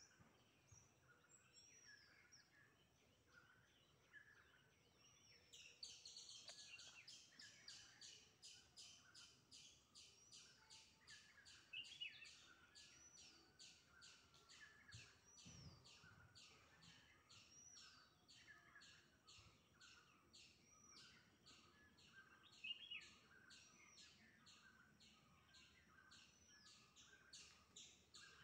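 Faint birdsong from several birds: one repeats an even series of short high notes about three a second, starting about six seconds in, while others give curved whistled notes and scattered chirps, two of them louder.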